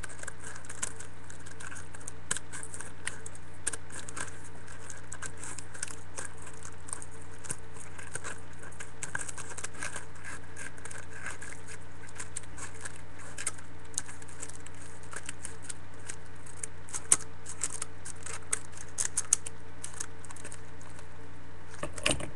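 Scissors cutting a plastic cup, with irregular small snips and crinkles of the plastic, a few louder near the end, over a steady low hum.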